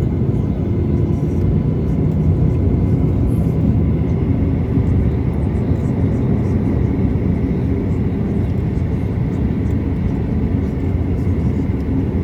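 Steady low rumble inside the economy cabin of a Boeing 737-800 taxiing after landing, its two CFM56-7BE engines running at low power, with a faint steady high whine over it.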